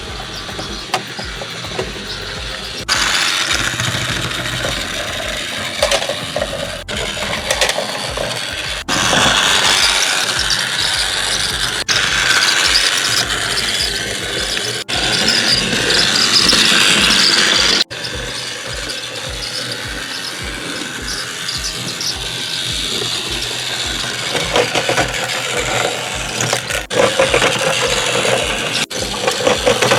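Battery-powered Trackmaster Thomas toy engine running along plastic track: its small motor and plastic gearbox whirring and clattering steadily, with sudden shifts in loudness every few seconds. The engine has rusty wheels and battery contacts and makes a little noise but works.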